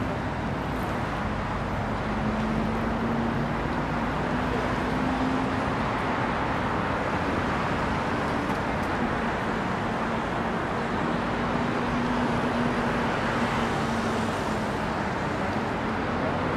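Steady road traffic noise from a city street, with a low engine hum that comes and goes.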